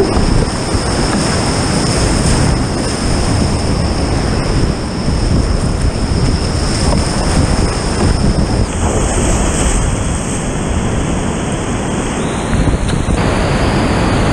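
Loud, steady rushing of creek whitewater at high water, heard close up from a kayak running the rapid. The hiss changes in tone about nine seconds in and again near thirteen seconds.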